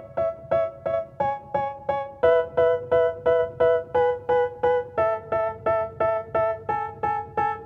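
Background music: a piano-like keyboard playing the same chord over and over, about three strikes a second. The chord changes twice, about two seconds in and about five seconds in.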